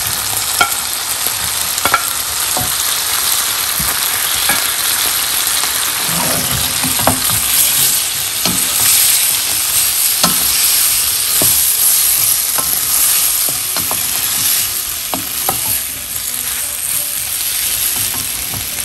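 Pre-fried chicken pieces with capsicum, onion and sauce sizzling in a hot nonstick wok while a wooden spatula stirs and tosses them. A steady frying hiss runs throughout, with scattered knocks and scrapes as the spatula hits the pan.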